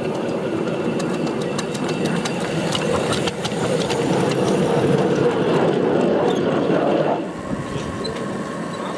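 Ridable miniature steam locomotive running past close by, its wheels clicking over the rail joints and getting louder as it passes. About seven seconds in it gives way abruptly to the quieter, steady running of a small idling engine.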